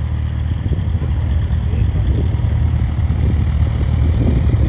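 Cessna 182 Skylane's six-cylinder piston engine running at low taxi power, a steady low rumble.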